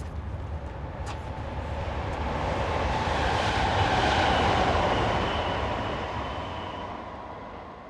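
A rumbling, rushing noise with a faint high whine that swells to a peak about four seconds in and then fades away, as of something passing by.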